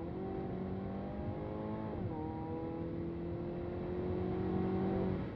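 Hyundai Kona N's 2.0-litre turbocharged four-cylinder engine accelerating under load. Its pitch climbs, drops sharply at an upshift about two seconds in, then climbs again.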